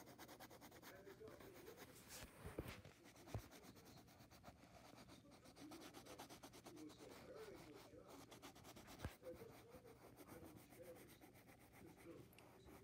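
Faint rubbing of a brown colored pencil shading a drawing on paper, going on steadily, with a few soft knocks about two to three seconds in and again around nine seconds.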